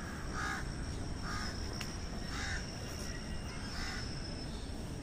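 Crow cawing four times, about a second apart, over a thin steady high tone and a low rumble.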